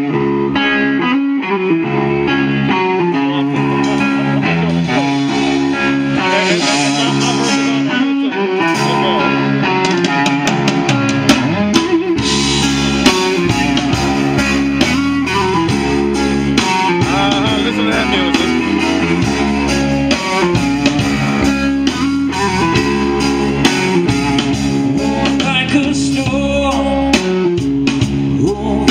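Live blues band playing, led by electric guitar. About twelve seconds in, the drums and bass come in fuller.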